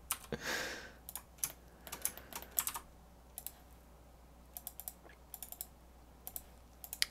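Computer keyboard keystrokes and clicks in short irregular clusters, the sound of hotkeys being pressed while working in 3D modelling software. A soft hiss in the first second.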